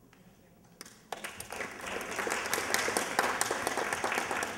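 Audience applauding, starting about a second in and quickly building to full clapping.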